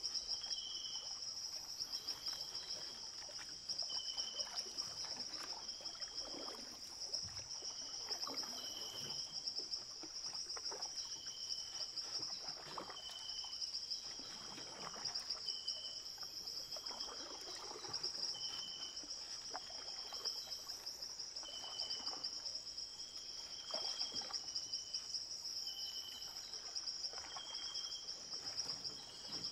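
Library swamp ambience: a steady high insect drone, with short chirping calls repeating about once a second and soft water trickles and splashes every two or three seconds.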